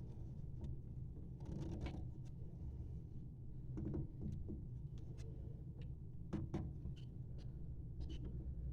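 Scattered light clicks and knocks, a few seconds apart, over a steady low hum.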